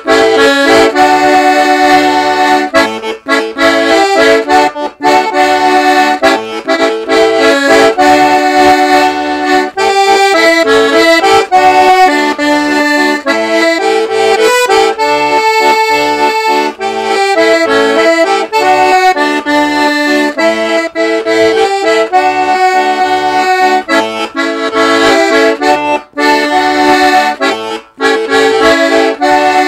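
Excelsior Excelsiola 8B diatonic button accordion (organetto) in the key of A/D, with three reeds per note (LMM), playing a tune: a melody on the treble buttons over rhythmic bass-button notes.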